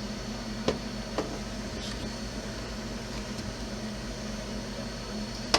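Steady droning hum of a fan or air conditioner, with three light clicks of small parts being handled: two in the first second or so, and a sharper one near the end.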